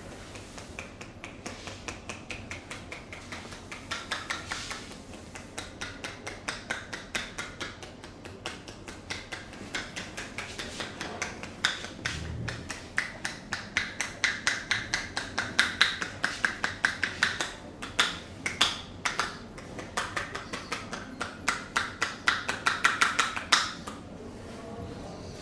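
A barber's hands slapping and tapping on a client in quick rhythmic percussive massage. The sharp strokes come three to five a second, in runs with short pauses, and grow louder in the second half.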